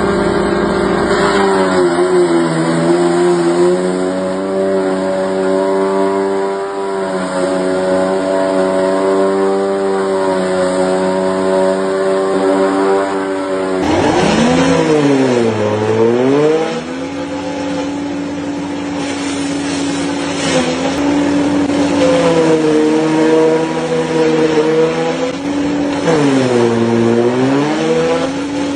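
Engine of farm machinery running steadily. About halfway through the sound changes abruptly, and twice in the second half the engine's pitch sags and then recovers.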